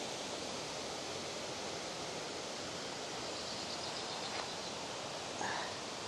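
Steady rush of a river's running water, with a short faint sound about five and a half seconds in.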